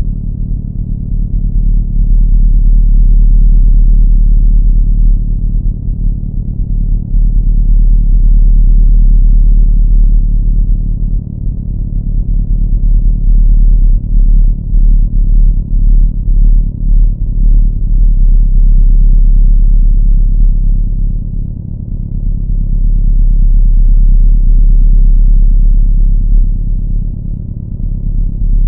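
A loud, low droning rumble on a steady pitch, dipping and swelling slowly a few times.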